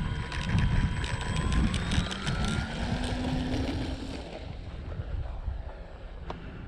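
Electric motor and propeller of an E-flite T-28 RC plane spinning up with a rising whine on takeoff, then fading away, over gusty wind buffeting the microphone.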